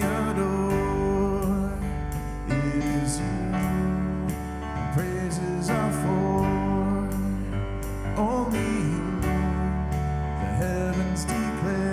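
Live worship band playing a slow song: piano chords, electric bass and an electronic drum kit, with a voice singing the melody.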